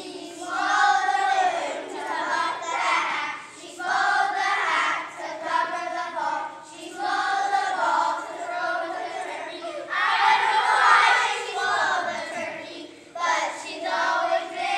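A group of young children singing together in unison as a choir, in phrases of a few seconds with short breaks between them.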